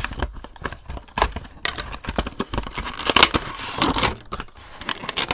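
Cardboard Funko Pop box being opened by hand: the top seal slit with a thin tool, then the clear plastic insert pulled out, with crinkling and rustling broken by many small clicks and taps.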